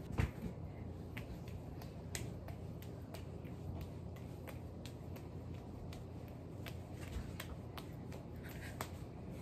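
Three lemons being juggled, slapping softly into the hands as they are caught: faint, uneven taps about twice a second, over a steady low room hum.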